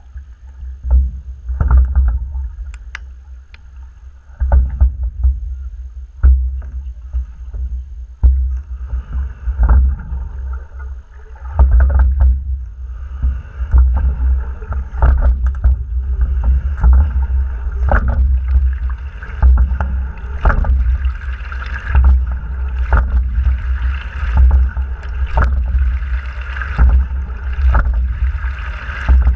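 Fluidesign single scull being rowed at a steady stroke, with a knock of the oars and rigging about every two seconds over a pulsing low rumble through the hull. Water rushes along the hull, louder from about halfway through as the boat picks up speed.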